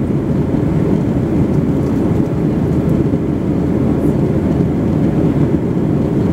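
Jet airliner cabin noise in flight: the steady, low rush of the engines and airflow heard from a window seat.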